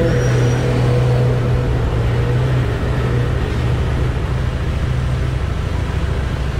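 Harley-Davidson Street Rod 750's V-twin engine idling steadily with the bike standing still.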